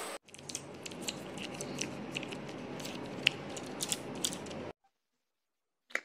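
Faint crackles and small clicks over a steady hiss as crispy fried chicken is handled on a plate; the sound cuts off suddenly near the end, leaving a brief silence and one last click.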